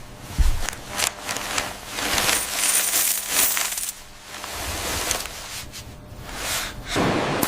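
Crisp, clinking crackles and sharp clicks, many in quick succession, of food ASMR sounds; the crackling is brightest and densest in the middle.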